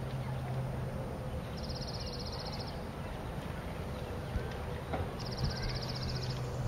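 Outdoor background with a steady low hum, broken twice by a high, rapid trill about a second long, with a few faint clicks.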